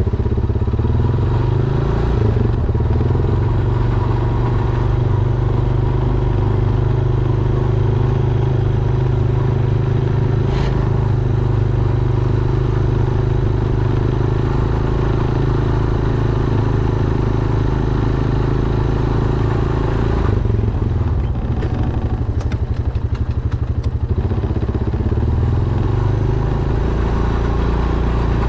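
Honda Foreman ATV's single-cylinder four-stroke engine running steadily under load. Its note drops about twenty seconds in and rises again near the end.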